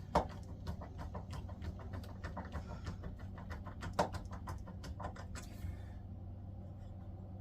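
Butt plate screw being driven by hand with a screwdriver into the wooden shotgun stock: a rapid run of clicks, about six a second, that stops near the end.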